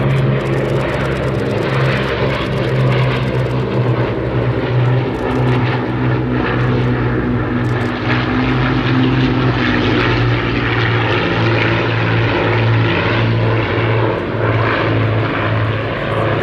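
Avro Anson C19's twin Armstrong Siddeley Cheetah radial engines running steadily in flight, with propeller noise and a slight shift in pitch about ten seconds in.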